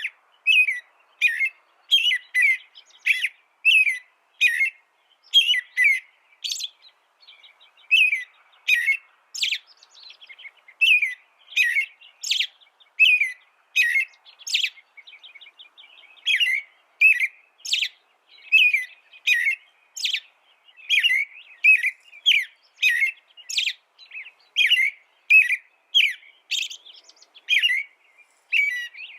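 A small songbird chirping over and over, about one to two short, sharp notes a second, with a few brief pauses.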